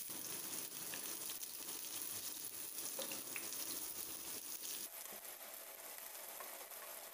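Sliced onion, garlic and green chilli sizzling in hot oil in a nonstick pan as they are stirred with a spatula: a steady frying hiss that drops a little about five seconds in.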